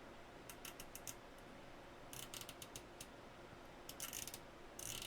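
Channel/frequency rotary encoder knob of a Radio Shack HTX-10 10-metre radio being turned, giving faint detent clicks in four short runs, as the freshly resoldered encoder is tested.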